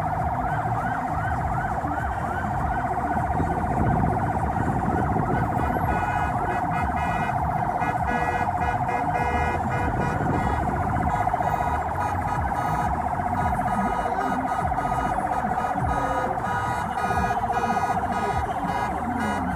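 Electronic sirens sounding without a break, with a yelping sweep that rises over and over in the first few seconds, over the low rumble of a slow-moving car convoy.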